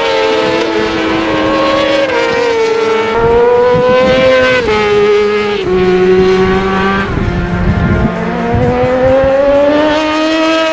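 Racing motorcycles running hard around the circuit at high revs. The engine note climbs steadily through each gear and drops sharply at each upshift, with a second bike's lower note underneath.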